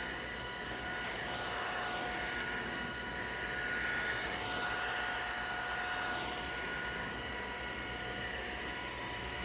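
Tineco A10-D cordless stick vacuum running: a steady motor whine made of several high, fixed tones over a rushing air hiss, swelling slightly now and then.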